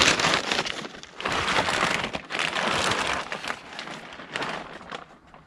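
Packaging crinkling and rustling in uneven spells as a new bumper lip spoiler is unwrapped by hand.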